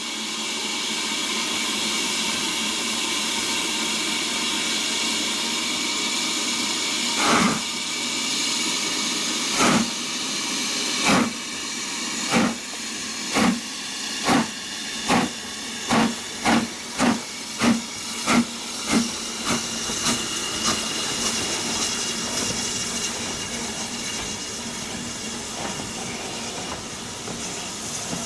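Steam locomotive hissing steam, then starting away: about seven seconds in its exhaust beats begin, slow at first and quickening to about two a second, before blurring into a steady run.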